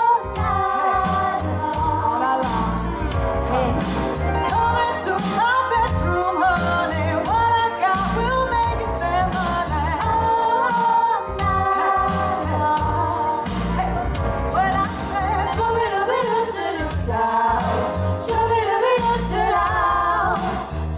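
Female vocal group singing a pop song with microphones over music with a steady beat and bass.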